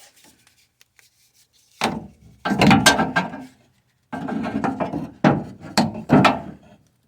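Scraping, rubbing and knocking from hands working parts inside a car door. There is a short burst about two seconds in, two longer stretches of scraping, and a few sharp knocks near the end.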